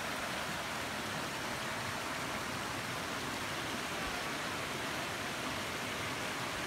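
Steady rush of water from a small cascade on a mountain stream, an even hiss at a constant level.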